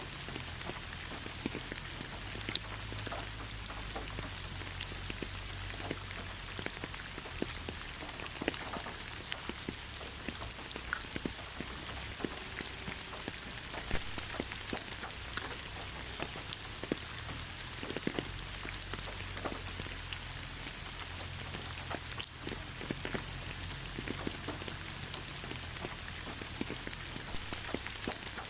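Steady rainfall: an even hiss with many separate drops striking the surface at irregular moments.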